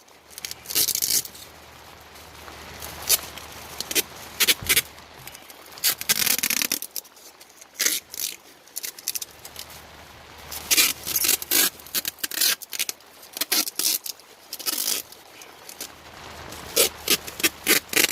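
Duct tape being pulled off the roll and torn in irregular short rasps, with scraping and rubbing as it is wrapped around a flexible air duct joint.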